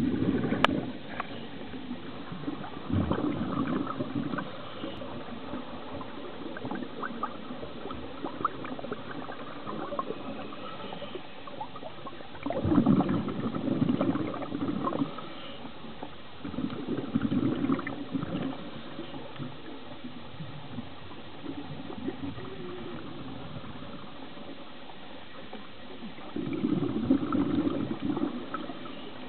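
Scuba regulator exhaust bubbles heard underwater: several gurgling bursts of exhaled air a second or two long, coming every few seconds at uneven intervals, with faint crackling clicks in between.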